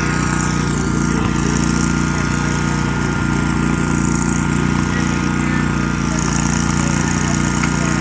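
Small gasoline lawn mower engine running steadily at a constant speed.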